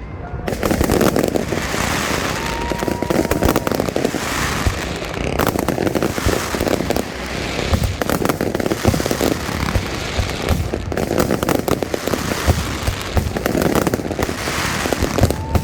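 Fireworks display: a dense, unbroken run of crackling and bangs.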